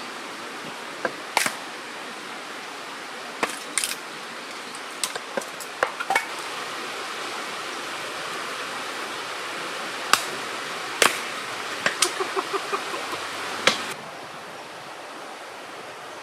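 Wood campfire crackling, with irregular sharp pops over a steady rushing hiss; the pops come thickest a few seconds before the end.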